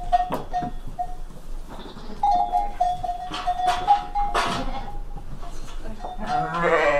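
Sheep in a pen bleating, with a long quavering bleat near the end and scattered knocks of animals moving about.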